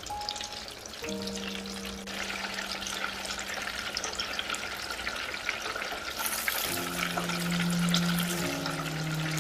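Breaded pork cutlets deep-frying in hot oil in a deep fryer: a steady, dense crackle and sizzle of bubbling oil.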